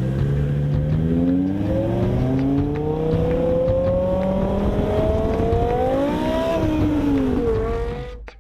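BMW M6 V10 engine through a Meisterschaft exhaust under hard acceleration, its pitch climbing steadily for about six seconds, dropping briefly, rising again and then cutting off abruptly near the end.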